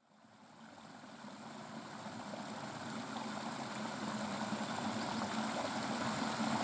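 Steady room background noise, a low hum with hiss, fading in from silence over the first few seconds after an audio cut.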